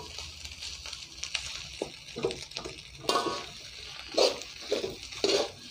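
Shredded parotta, egg and vegetables sizzling in a metal wok, with metal spatulas scraping and tossing the mixture now and then.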